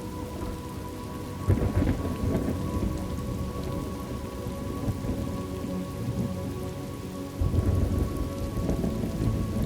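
Steady rain with two rolls of thunder, one starting about a second and a half in and another about three-quarters of the way through.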